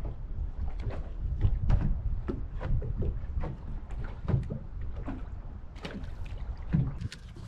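Wind rumbling on the microphone and small waves lapping against the boat hull, with scattered light knocks and clicks.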